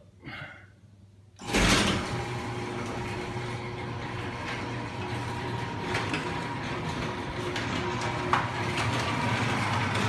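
Allister Access 200 garage door opener starting abruptly about a second and a half in, then running steadily with a constant motor hum as it raises the sectional door. A sharp click comes near the end. The opener is working normally again on a newly replaced V-belt.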